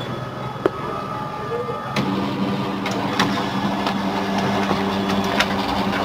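Pantum M7102DW laser multifunction printer starting up and running a job: its drive motor and gear train set up a steady hum about two seconds in, with sharp clicks of the mechanism, the gears freshly oiled to cure a gear noise.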